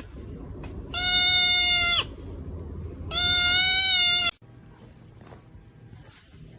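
An animal giving two long, bleat-like calls about two seconds apart, each held at an even pitch for about a second and dropping off at the end.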